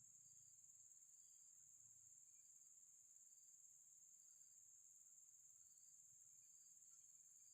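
Near silence but for a faint, steady insect chorus: a continuous high trill with short chirps repeating about once a second, typical of crickets.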